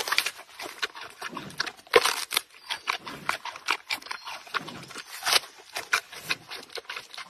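Giant panda biting and chewing a fresh bamboo shoot: quick, irregular crunches and snaps of the fibrous shoot, with a sharp crack about two seconds in.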